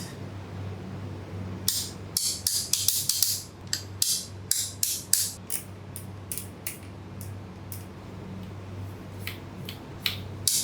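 Quick run of sharp clicks and taps from handling a newly unboxed electric guitar, dense for a few seconds and then scattered single clicks, over a steady low hum.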